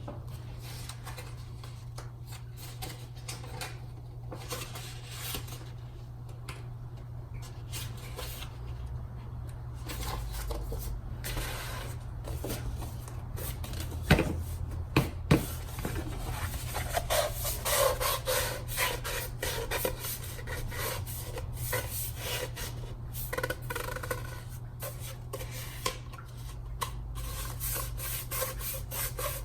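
Cardstock paper petals rubbing and rustling as they are handled and shaped, with irregular scraping strokes and two sharp clicks about halfway through, over a steady low hum.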